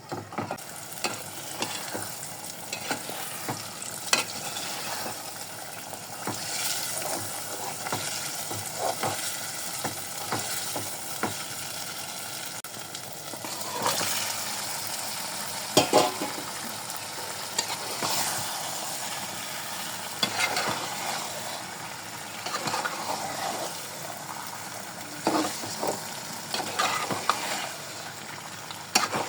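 Chicken curry sizzling as it fries in a pan, with a spoon scraping and knocking against the pan while it is stirred.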